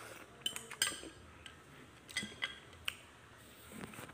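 Metal fork and chopsticks clinking against a plate as they are put down: several sharp, ringing clinks, the loudest just under a second in.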